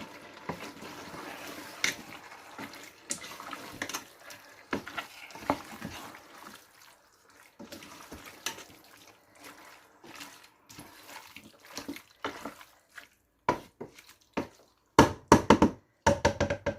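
A spoon stirring a wet mix of chicken, tomatoes and masala in a pot, with soft squelching and scraping full of small clicks. Near the end there is a run of loud, sharp knocks.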